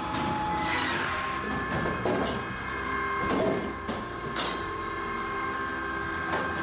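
Electric-driven firewood processor running: a steady machine drone with a thin whine. It is broken by about five sharp knocks and clatters of wood against metal at uneven intervals.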